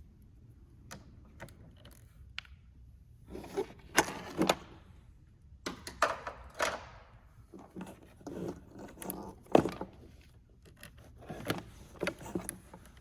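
Small metal clinks and rattles of hand tools and wire ring terminals as harness leads are fastened onto a car battery's terminals. They come in several short bursts of clicks and clatter.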